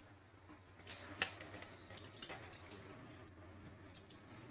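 Faint drips and small splashes of water as a wet cat is washed by hand, with a slightly sharper splash about a second in.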